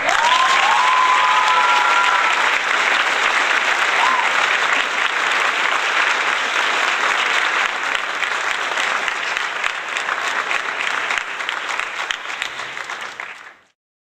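Crowd applauding, with some cheering in the first couple of seconds. It starts suddenly and fades out near the end.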